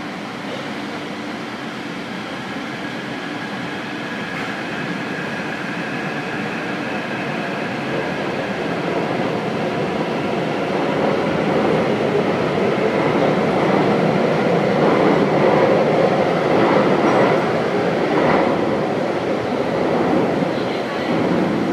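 Taipei Metro train pulling out of the station and accelerating into the tunnel. Its motors whine in a few steady tones while the running noise of wheels on rail grows louder, peaks as the last cars pass about two-thirds of the way in, then eases as the train recedes.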